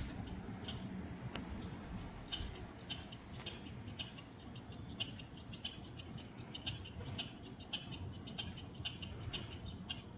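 Red squirrel scolding: a long run of short, sharp, high chirps, about three a second and unevenly spaced.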